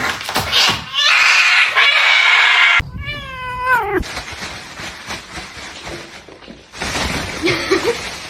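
A cat meowing once, a drawn-out call of about a second that drops in pitch at the end. Before it, a loud rushing hiss fills the first few seconds.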